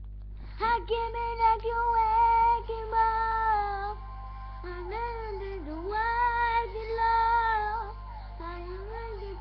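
A young girl singing unaccompanied, holding long, slightly wavering notes, close to a phone's microphone over a steady low hum.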